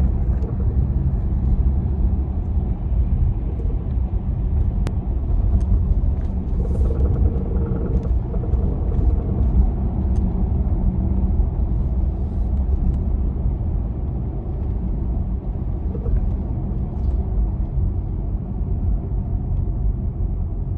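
Tesla driving on the road: a steady low rumble of road and tyre noise, with a few faint ticks scattered through it.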